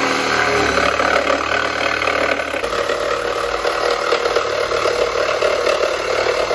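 Cordless jigsaw running continuously as it cuts through a chipboard table top, the blade chattering in the board. The low part of the sound shifts about a third of the way in.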